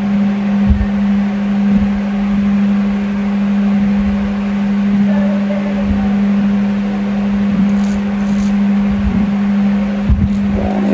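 A steady electrical or appliance hum at one low pitch with faint overtones. A few soft low knocks, like handling near the microphone, come and go.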